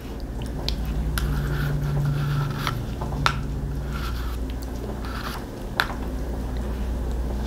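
A person eating yogurt from a spoon: soft chewing and mouth sounds with a few sharp clicks, over a steady low hum.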